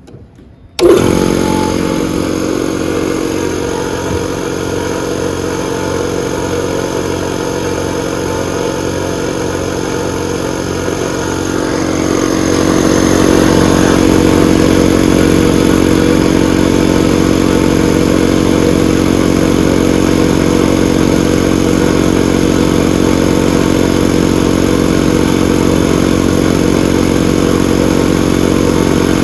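A Woosu TOP-5.5HP-120L-ST 5.5 hp portable air compressor with a 120-litre tank starts suddenly about a second in and runs steadily. It gets louder about twelve seconds in and stays at that level.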